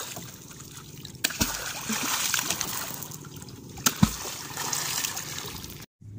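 A wooden pole plunged hard into the sea twice, about two and a half seconds apart. Each stroke is a thump followed by splashing water, as the water is pounded to drive fish into a set net.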